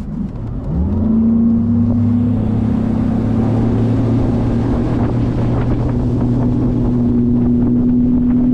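Bass boat's outboard motor throttling up, its pitch climbing quickly in the first second, then running at a steady high pitch as the boat gets under way, with wind noise on the microphone.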